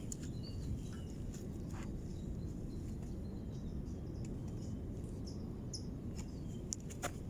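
Outdoor ambience: a steady low rumble, with a few faint, short, high chirps and a couple of light clicks.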